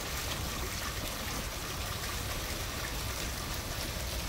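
Steady rain falling, a constant even hiss with water trickling and running.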